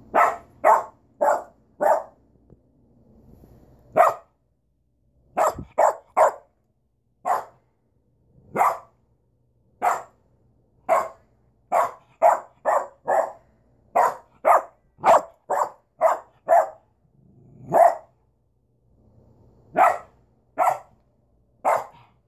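Bernese mountain dog puppy barking: about two dozen short, sharp barks, some in quick runs of three to five, with pauses of a second or two between runs.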